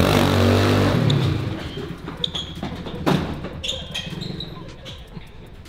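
Small dirt bike (pit bike) engine running, then fading away about a second and a half in. A single sharp thud about three seconds in, with a few faint high squeaks after.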